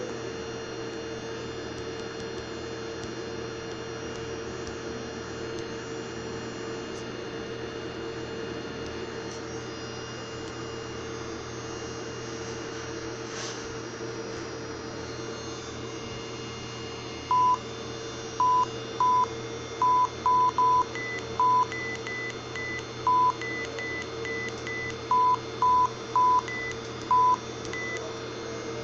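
Steady electrical hum with a constant low drone. Past the halfway point come about a dozen short, loud electronic beeps at one pitch, irregularly spaced, with fainter higher-pitched beeps between them.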